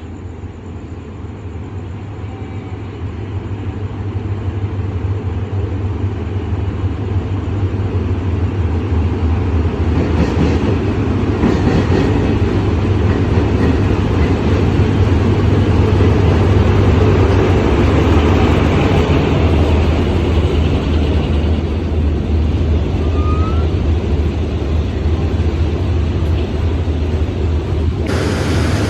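Passenger train running on the rails, a steady low rumble that grows louder over the first several seconds and then holds level. The sound turns suddenly brighter near the end.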